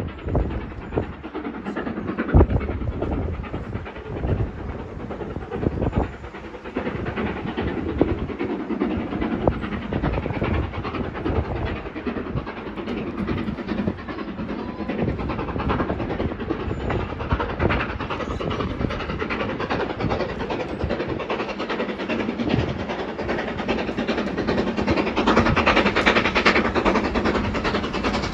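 LNER B1 steam locomotive 61306 Mayflower hauling its train: a continuous rumble and clatter of the train running on the rails, growing louder in the last few seconds.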